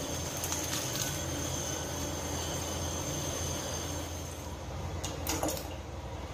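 Steady kitchen background hum, with soft rustling and light knocks as fresh spinach leaves are pressed into a stainless-steel pot. Near the end there are a few quick clicks, from paneer cubes being handled and dropped into water in the pot.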